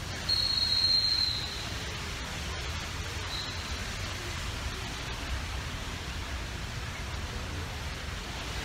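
Steady street noise of hiss and low rumble from traffic around the mall's drop-off road. A high, steady whistle-like tone lasts about a second near the start, and a shorter, fainter one comes a few seconds later.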